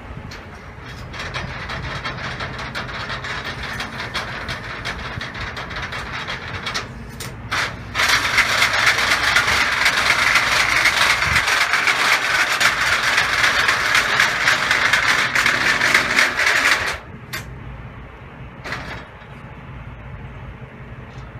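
Car-hauler trailer's rear decks and steel loading ramps lowering under power: a steady mechanical running sound with a low hum and a dense rattle of clicks. It grows louder and higher from about 8 seconds in, then drops back near 17 seconds.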